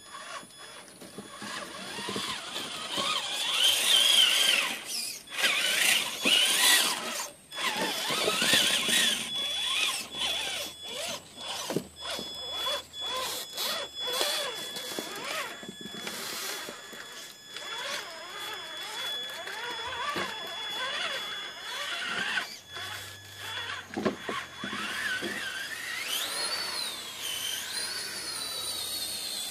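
Traxxas Summit electric RC crawler truck's motor and gearbox whining, rising and falling in pitch with the throttle as it crawls over rocks. Scattered knocks and clicks come through as it works over the stone.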